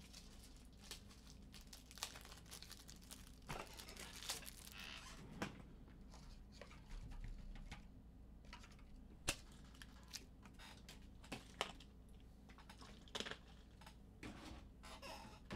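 Faint rustling and crinkling as something is handled, with scattered light clicks and taps.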